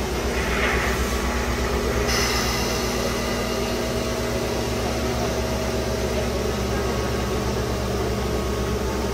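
Air compressors on the tender of a D52 steam locomotive running with a steady, pulsing hum while the locomotive moves slowly on compressed air instead of steam. A steady hiss of air joins about two seconds in.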